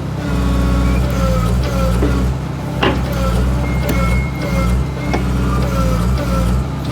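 Background music with a repeating tune over an excavator's engine running under load, with two sharp knocks, about three and five seconds in.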